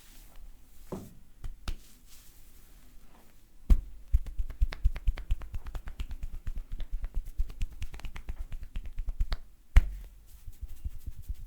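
Massage percussion by hand: a few scattered taps, then a fast, busy run of slaps and snapping taps, several a second, with two louder strikes, one just under four seconds in and one near the end.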